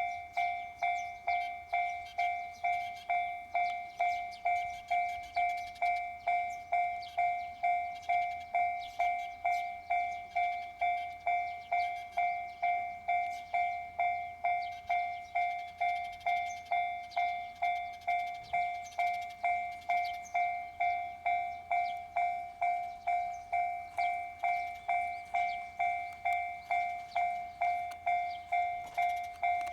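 Japanese railway level-crossing warning bell ringing: an electronic ding repeating evenly about twice a second, each strike fading before the next. The crossing is active, warning of an approaching train.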